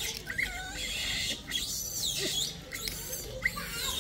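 Gray langurs making short, high squeaky calls and chirps, scattered and overlapping, while they crowd round food.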